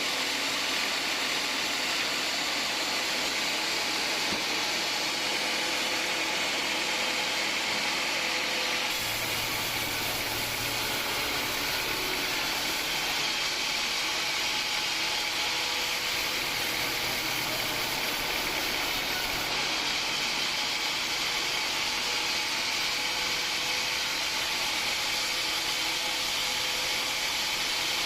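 Bandsaw mill running steadily as its blade cuts through a hard acacia log: a constant, even mechanical noise, with a lower hum and a brighter hiss added for about ten seconds in the middle.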